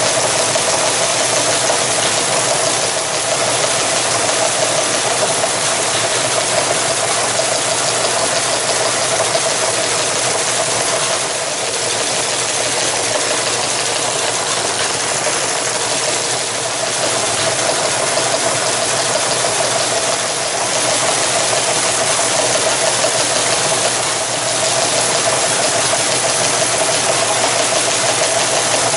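Teletype Model 19 running at speed, its page printer typing line after line from punched tape fed through the transmitter-distributor. It makes a continuous rapid mechanical clatter over a steady motor hum.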